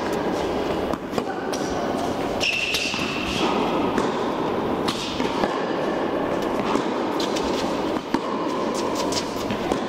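Indoor tennis rally on a hard court: sharp racket strikes and ball bounces every second or two, echoing in a large hall over a steady background noise.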